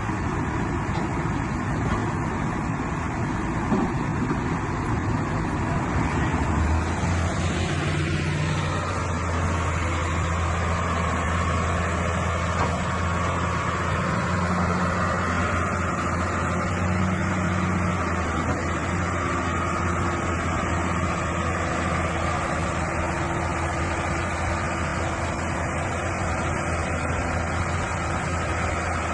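Heavy machinery diesel engines running steadily. A deeper, stronger engine hum comes in about seven seconds in and holds.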